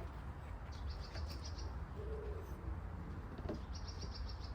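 A small bird calling twice, each time a short, fast high trill, about a second in and again near the end, over a steady low rumble.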